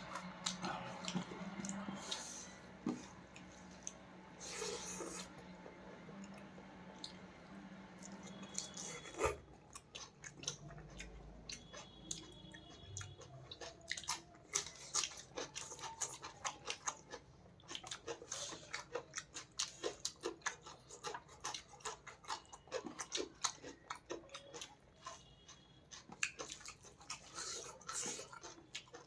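Close-up chewing and mouth sounds of someone eating fish and rice, with many short wet clicks that come thick and fast in the second half. A low steady hum stops after a sharp click about nine seconds in.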